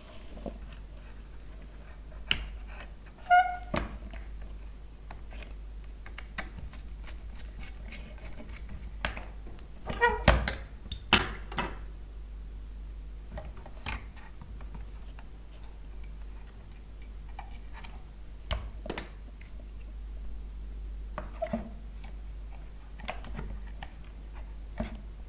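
Scattered light clicks and taps of small tools and electronic parts being handled on a workbench, with a cluster of louder knocks about ten seconds in and a short squeak about three seconds in, over a faint steady low hum.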